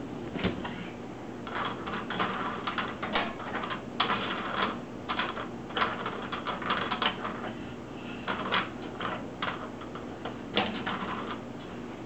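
Short, irregular rasping scrapes and rattles, several a second in uneven clusters, as a toddler rubs and knocks things against an open dishwasher's door and wire racks.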